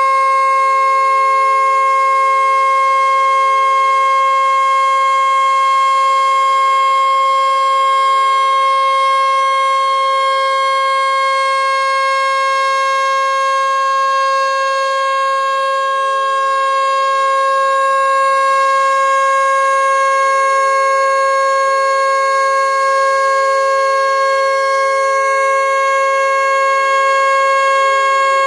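Vixen VXS-2245AR (Lion King JDW245) electric motor siren running at speed, holding one loud, steady-pitched wail. A weaker, slightly lower second tone comes and goes beneath it and begins to fall in pitch near the end.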